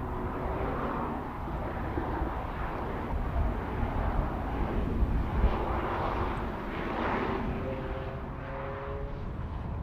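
Audi S3 Cabriolet's turbocharged four-cylinder engine running at speed, heard from a distance over a steady rumble, swelling and easing a few times.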